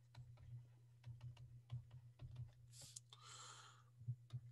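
Faint, irregular light clicks of a stylus tapping on a tablet screen during handwriting, over a low steady hum, with a short soft hiss about three seconds in.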